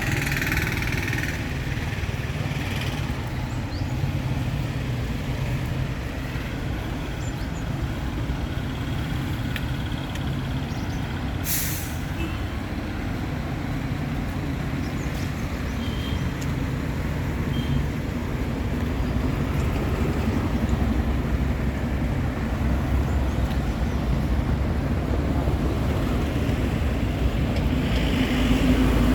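Street traffic dominated by the low, steady rumble of a heavy vehicle's diesel engine running close by, with one short hiss about a third of the way in; the engine grows louder near the end.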